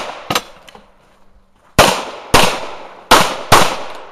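Semi-automatic pistol shots: a single shot, then two quick pairs, the shots in each pair about half a second apart, each crack trailing off in a short echo.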